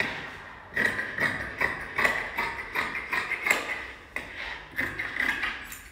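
Large steel tailor's shears cutting lining fabric on a table, a rapid series of crisp snips, about three a second.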